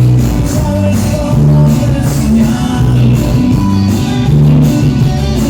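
Loud music playing through a sound system: a steady beat with heavy bass notes and faint singing.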